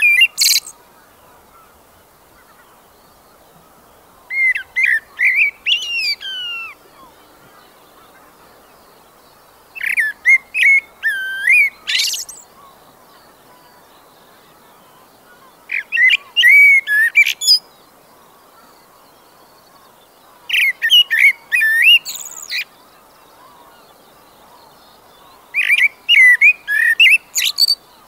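A songbird singing short phrases of quick, varied whistled notes, each about two seconds long and repeated about every five seconds, over a faint steady outdoor hiss.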